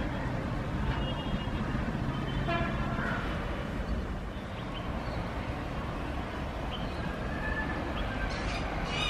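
Freight train wagons running past with a steady rumble, and several short horn toots sounding through it.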